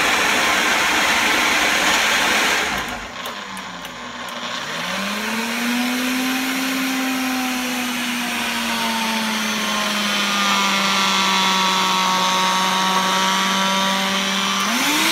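Ninja Ultima blender running on a thick load of frozen strawberries and ice. About three seconds in its motor drops off, then winds back up with a rising whine. It settles into a steady hum that slowly falls in pitch and climbs again near the end. The mixture is very thick, with ice still unblended at the top.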